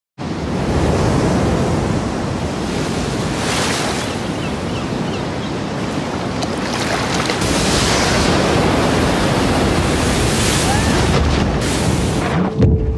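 Ocean surf: waves breaking and washing, swelling and easing, with wind over it. It drops away suddenly just before the end.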